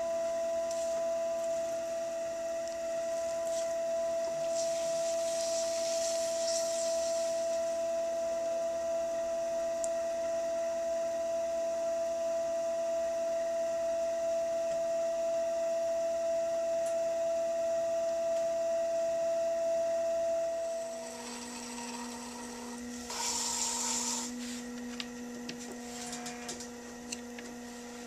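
Electric pottery wheel motor whining steadily at speed while wet clay is shaped on it. About twenty seconds in the whine drops to a lower pitch as the wheel slows, followed by a short scraping of a tool on the wet clay.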